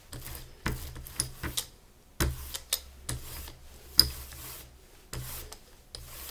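Rubber brayer rolling paint back and forth across a gel printing plate, a series of short sticky rubbing strokes, some starting with a sharp click.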